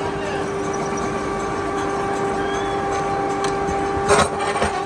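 Workshop machine motor running steadily with a constant hum, with a couple of sharp knocks about four seconds in.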